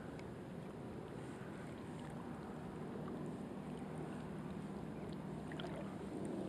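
Steady low outdoor rumble at the lake shore with a faint low hum, and a few faint short chirps about five and a half seconds in.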